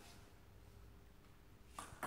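Near silence: faint room tone with a low hum, and a faint tap near the end.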